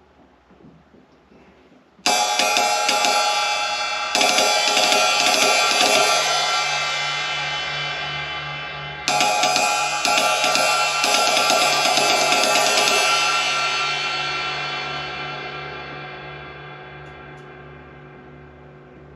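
A 1970s Paiste Formula 602 16-inch flat ride cymbal being played. Strokes come in bursts starting about two seconds in, again about two seconds later and again near the middle. The cymbal is then left to ring out, its shimmer fading slowly over the last several seconds.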